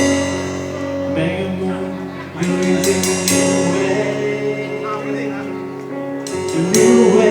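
Live band playing during a sound check, with sustained chords, a voice singing and cymbal crashes.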